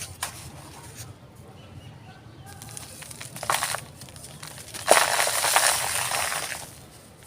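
A dry, crumbly solid being crushed and crumbled: a brief crunch near the start, another short one about three and a half seconds in, then a loud crumbling lasting nearly two seconds from about five seconds in.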